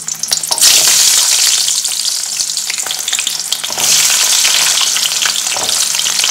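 Small shallots going into hot oil in a metal kadai and deep-frying, a loud sizzle full of small pops. The sizzle jumps up about half a second in and swells again just before four seconds in, as more shallots go into the oil.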